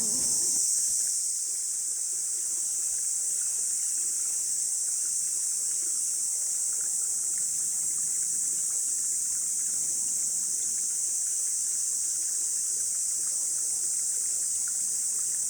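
Steady high-pitched chorus of summer insects droning without a break, over the soft running of a small mountain stream.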